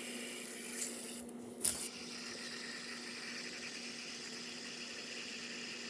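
Fidget spinner on a pen's top spinning on its ball bearing: a steady, faint whir, with a brief knock about one and a half seconds in.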